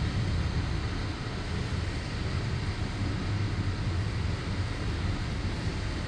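Steady, low engine rumble with a rushing hiss over it, unchanging throughout.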